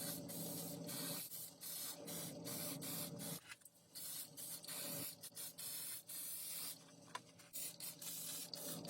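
Aerosol can of gloss clear lacquer spraying in a series of short hissing bursts with brief pauses between them.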